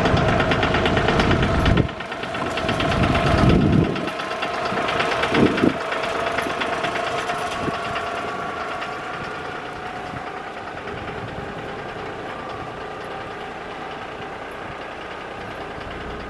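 Engine of the vehicle towing a loaded hay trailer, running throughout: louder over the first few seconds, then settling to a steady, lower level.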